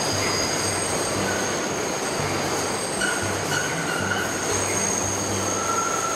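New York elevated subway train running on the steel viaduct overhead: a loud, steady metal-on-metal rumble with high-pitched wheel squeal running over it. Further, lower squeals come in from about three seconds in.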